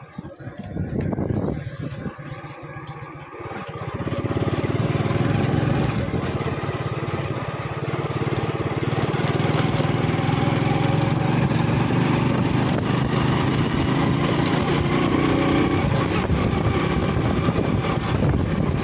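Small vehicle engine running steadily on the move, getting louder about four seconds in as it picks up speed.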